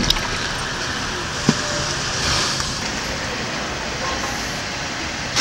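Steady car and traffic noise, an even hiss, with a light click about a second and a half in.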